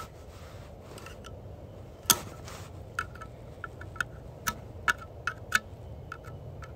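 Sharp clicks and taps from hand work on an Echo 7310 chainsaw's sprocket and clutch area, bar and chain off. Two loud single clicks, at the start and about two seconds in, then a run of lighter clicks about two a second, over a faint steady low hum.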